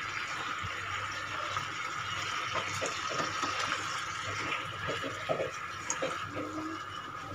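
Steady hiss of a frying pan of sauce cooking on a gas stove, with soft scraping and dabbing in the middle as a silicone brush spreads sauce over chicken satay skewers in the pan.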